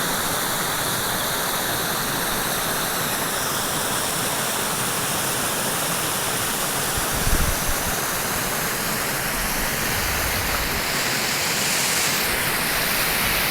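Waterfall rushing with a steady, even roar of falling water, and a brief low thump about seven seconds in.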